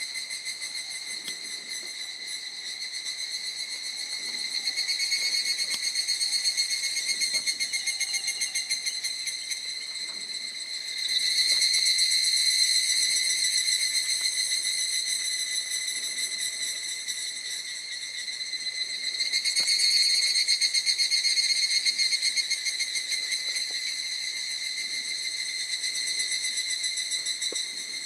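Insects calling: a steady, rapidly pulsing high-pitched trill that swells louder and fades back several times.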